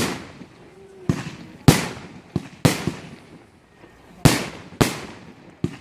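Aerial fireworks bursting in quick succession: about nine sharp bangs at uneven intervals, each trailing off briefly.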